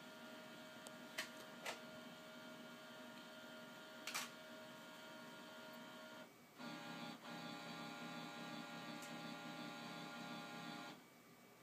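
A printer-scanner's motor running with a steady tone and a few sharp clicks. About six seconds in it pauses briefly, then runs again louder at a different pitch, and stops near the end.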